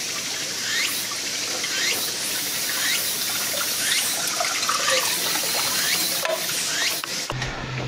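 Water trickling from a bamboo spout (kakei) into a small pond: a steady splashing hiss with short rising plinks about once a second. It cuts off abruptly near the end, giving way to a low steady hum.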